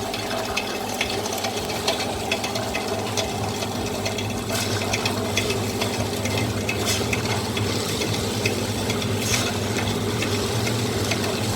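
Electric wet grinder running steadily: its motor hums while the stone rollers turn in the drum, grinding freshly added soaked rice with a gritty crackle and many small clicks.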